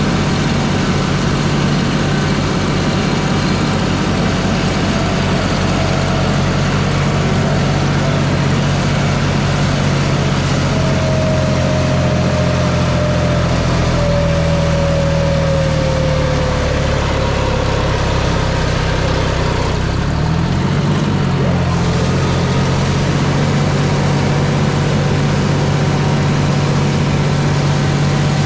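A diesel engine running steadily and close by. Part way through, its pitch sags while a faint falling whine is heard, and about two-thirds through it comes back up to its earlier speed.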